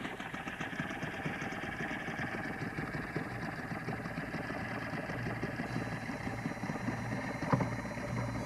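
Small Mercury outboard motor running steadily close by, a fast even mechanical chatter. Near the end there is a single sharp knock.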